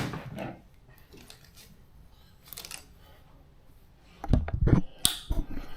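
Plastic trim clips and seat connectors being worked by hand, giving light scattered clicks, then a short cluster of dull knocks about four seconds in and one sharp click just after.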